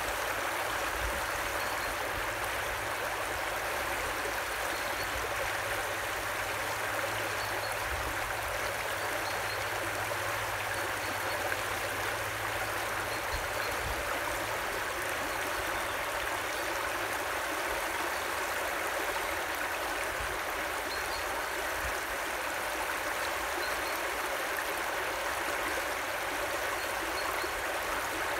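Shallow river water running across a ford and spilling over its edge in a small cascade: a steady rushing and trickling.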